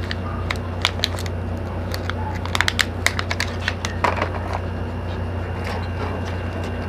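Clear plastic bag crinkling and small plastic parts clicking as a clip-on phone camera lens is unwrapped, a quick run of sharp crackles that thins out after about four seconds, over a steady low hum.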